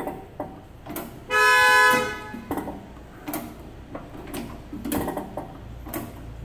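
A manual dog tag embosser's character wheel is turned by hand, giving scattered clicks and knocks as it indexes and the tag carriage is moved. About a second in, a vehicle horn honks once for under a second, the loudest sound here.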